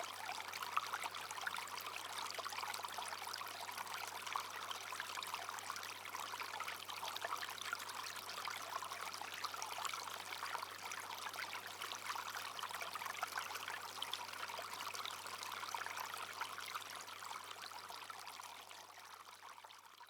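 Small brook flowing steadily, a continuous trickling and babbling of water over rocks. It fades out near the end.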